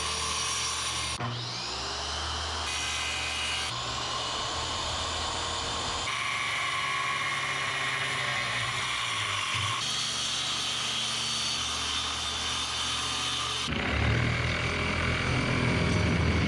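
An electric power tool runs steadily, working on wood, with its pitch and tone changing abruptly several times. It is loudest near the end and cuts off suddenly.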